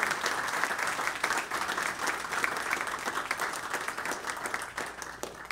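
Audience applauding, a dense patter of many hands clapping that gradually thins and stops at the end.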